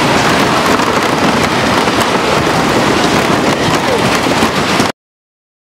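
Wooden roller coaster train rattling and clattering along its timber track, heard from on board the moving train. The sound cuts off suddenly near the end.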